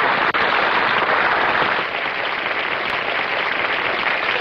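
A steady, loud hiss of noise, like a sound effect, with a brief break about a third of a second in.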